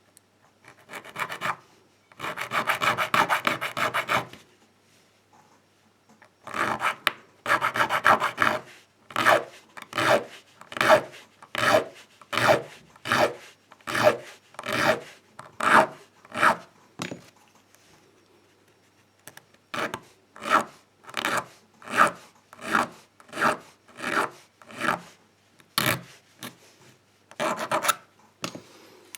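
A hand file cutting a notch into a key blank in rasping strokes: a couple of quick runs of strokes, then a long series of separate strokes, about one a second, with a short pause partway through. The cut is being filed down until the key pin sits flush.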